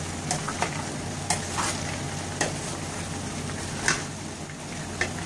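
Raw peanuts deep-frying in very hot oil over high heat: a steady sizzle, with the stirring utensil scraping and clacking through the nuts in several sharp, irregular clicks. The peanuts are partly pale and only starting to turn golden brown.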